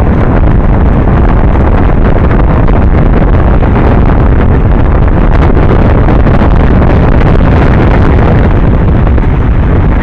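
Loud, steady wind noise buffeting the microphone of a camera on a moving road bike.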